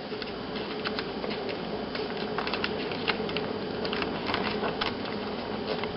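A sheet of paper being folded and creased by hand, crinkling with scattered small crackles and ticks.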